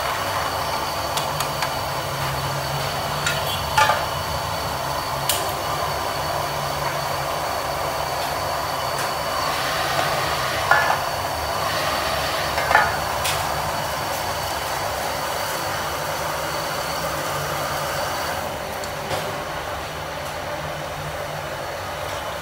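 Steady roar of gas stove burners under pans of boiling clams and snails, with a few sharp clinks of utensils and pans against metal. The roar eases slightly near the end.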